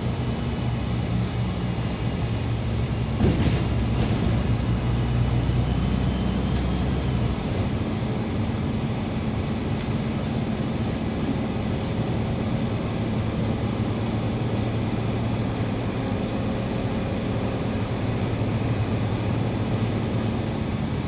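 MAZ-203 city bus running along its route, heard from inside the passenger cabin: a steady engine drone with road noise. There is a sharp knock about three seconds in, and the deepest part of the engine note drops away about seven seconds in.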